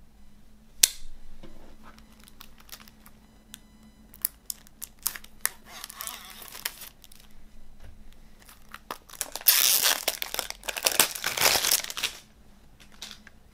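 Plastic shrink-wrap on a CD jewel case being slit with a knife blade, then pulled off with loud crinkling and tearing for a few seconds. A sharp click about a second in and small plastic clicks and taps from the case being handled.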